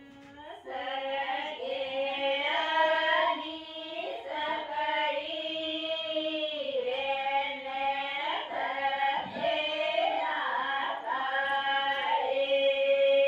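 Women singing a Rathwa wedding song (lagna geet) together without instruments, in long held notes that begin about half a second in.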